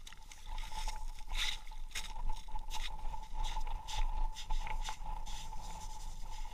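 Rubber boots crunching and scraping on snow-covered ice in irregular footsteps, over a faint steady tone.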